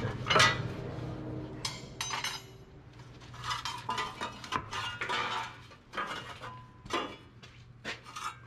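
Metal suspension parts on a truck's Hendrickson Haulmaax suspension clanking and clinking as a rusty plate is knocked loose and worked out by hand, with a ringing clink about two seconds in and a run of knocks after. A low steady hum runs underneath.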